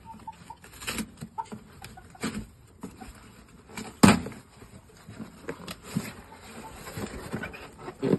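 Cardboard shipping box being handled: scattered knocks and scrapes, with one loud thump about four seconds in.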